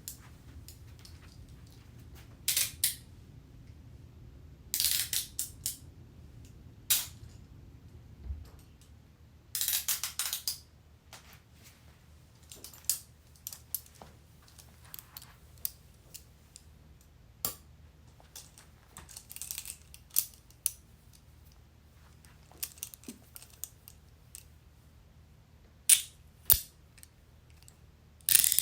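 Metal handcuffs being handled: a series of separate sharp clicks, clinks and short metallic rattles of the chain and ratchet, with pauses between them.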